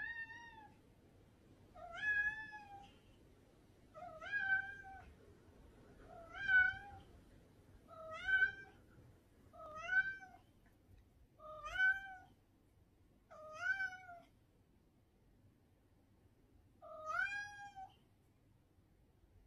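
Domestic cat meowing repeatedly: nine short calls about two seconds apart, each rising in pitch at the start, with a longer pause before the last one.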